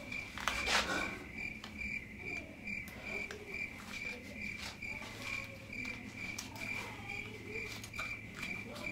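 Steady high chirping at one pitch, repeating about three times a second, of the kind crickets make. Over it are faint clicks and rustles from a waist-trainer belt's hooks and zipper being worked, with one louder click near the start.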